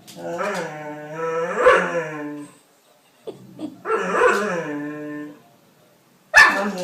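Dog howling in three long, drawn-out cries, the last starting near the end. It is the fearful howl of a dog that balks at walking past a cat.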